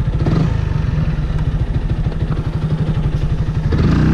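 Yamaha YZF-R125's single-cylinder 125 cc four-stroke engine running at low revs with an even pulsing beat while the bike rolls slowly through traffic. Near the end the engine note gets louder and steadier as the throttle opens.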